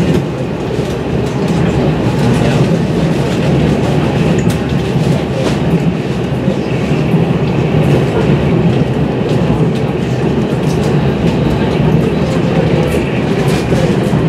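Taiwan Railways Fuhsing-class passenger train running along the line, a steady rumble with faint clicks of the wheels over the rails.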